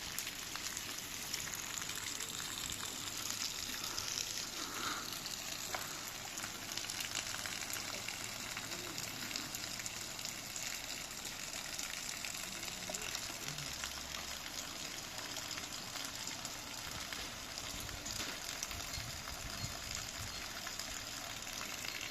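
Heavy rain falling: a steady hiss dotted with countless small drop ticks.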